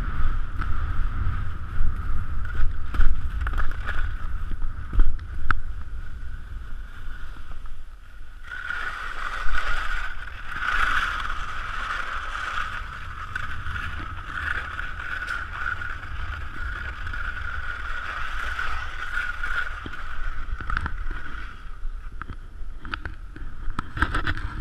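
Skis sliding and hissing over wind-packed snow on a downhill run, with wind buffeting the camera microphone as a steady rumble. The hiss grows louder about eight seconds in.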